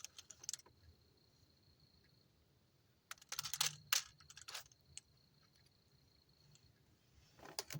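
Handling noise: bursts of small sharp clicks and rattles in three clusters, near the start, from about three to four and a half seconds in, and near the end, over a faint steady high whine.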